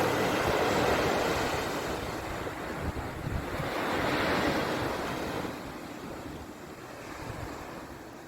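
Ocean waves breaking and washing ashore: one wave surges near the start, a second swells about four seconds in, then the surf eases off.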